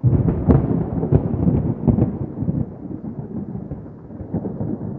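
A deep, thunder-like rumble with a few dull booms, starting abruptly. It sounds like a dramatic sound effect dubbed in for an entrance.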